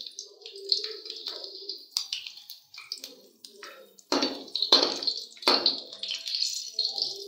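Slit green chillies sizzling and spattering in hot oil in a metal kadai, with a slotted spoon scraping and knocking against the pan as they are turned. The scrapes and spatters are loudest in the second half.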